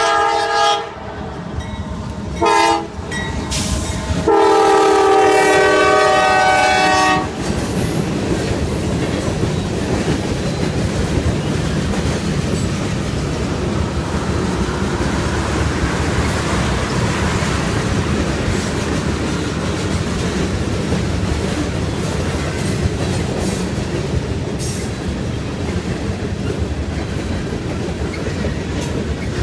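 Freight locomotive's air horn sounding three blasts: one ending just after the start, a short one about 2.5 s in, and a long one from about 4 to 7 s. Then the fast CSX mixed freight train passing, a steady rumble of wheels on the rails with the clickety-clack of the cars over the rail joints.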